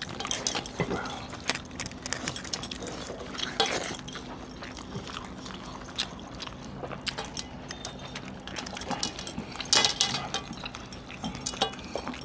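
Close-up eating sounds of chicken curry and rice eaten by hand: chewing, smacking and tearing meat, with scattered light metallic clinks on steel plates.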